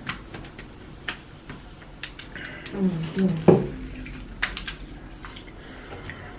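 Close-up eating sounds of fried chicken being chewed: scattered wet clicks, crackles and lip smacks, with a short two-note hum about three seconds in.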